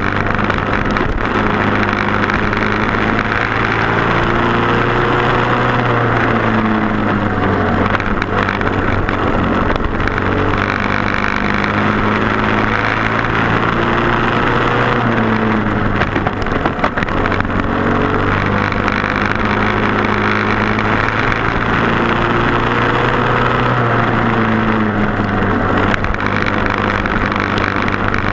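Racing karts' single-cylinder Briggs & Stratton Animal engines running hard at race speed, their pitch falling and rising again every few seconds as they slow for corners and accelerate out, over a steady low hum.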